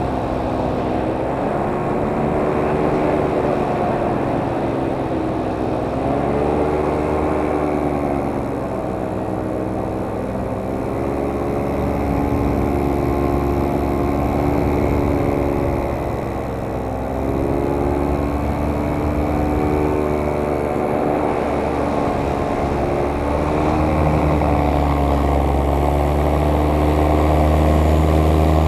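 Camera drone's propellers humming, the pitch of its several motors rising and falling together as it manoeuvres. A lower engine rumble grows in the last few seconds as the motorboat comes near.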